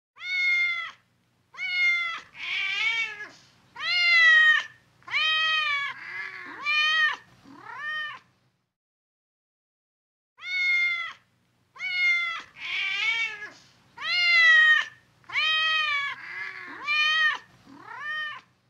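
Domestic cat meowing over and over, about seven meows in eight seconds, each rising and then falling in pitch. After a pause of about two seconds the same run of meows repeats exactly.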